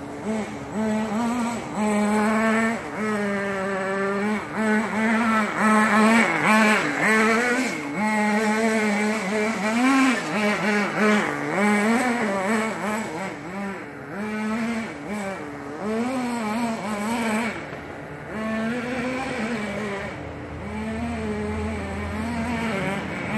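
Redcat Lightning STR nitro RC rally car's small glow engine revving up and down again and again as the car is driven around, its pitch rising and falling every second or so. The owner says the engine was running rich.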